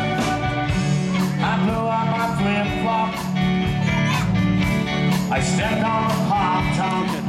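Live band playing amplified music with electric guitar, bass, keyboard and a drum kit keeping a steady beat.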